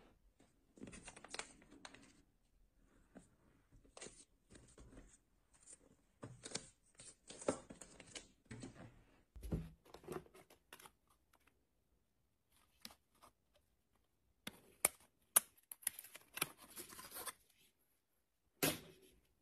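Hands handling cardboard packaging and small accessories: scattered taps, clicks and rustles of box parts and plastic sticker sheets being picked up and moved, with a sharp click near the end.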